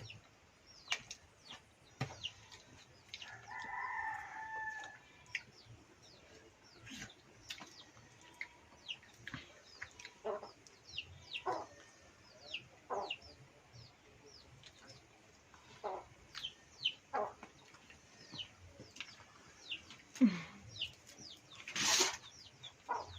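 Chickens clucking and calling, with many short, falling chirps throughout, one longer drawn-out call about three and a half seconds in, and a brief burst of noise near the end.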